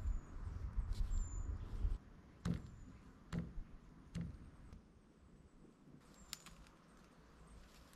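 A low rumble on the microphone for the first couple of seconds, then three dull thuds a little under a second apart, with a few short, high, falling bird chirps in the background.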